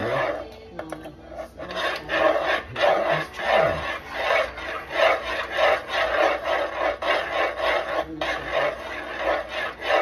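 Wooden spoon or spatula scraping round the bottom of a pot while stirring thick maja blanca mixture, in a steady rhythm of about two scraping strokes a second.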